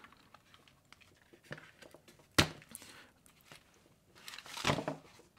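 An Iomega metal external hard-drive enclosure is being pried apart by hand. There are a few faint clicks, a sharp snap about two and a half seconds in, then a short scraping, tearing sound near the end as the lid pulls away from the frame.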